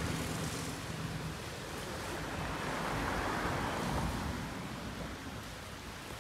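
Sea waves washing onto a beach, building to a louder wash about halfway through and then easing off.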